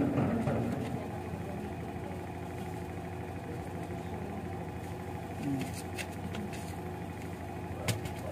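A motor running steadily, an even low hum, with a few faint clicks and one sharper click near the end.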